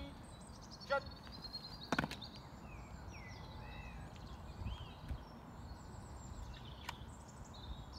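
Outdoor ambience: small birds chirping in short high calls over a steady low background rumble, with one sharp knock about two seconds in.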